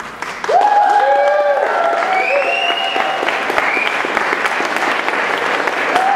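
Audience applauding, starting suddenly about half a second in and holding steady, with whoops and shouted cheers over the clapping.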